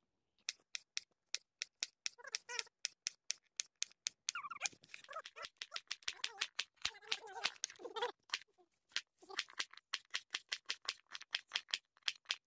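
Hot cooking oil in a kadhai crackling, with quick, irregular sharp pops.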